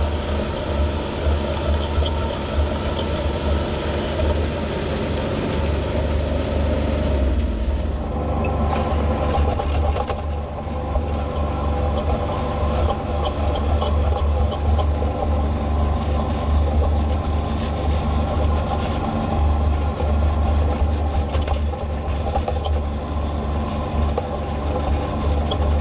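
Kubota B2601 compact tractor's three-cylinder diesel engine running steadily under load while the front-mounted snowblower throws snow. About seven seconds in the sound shifts, then stays steady.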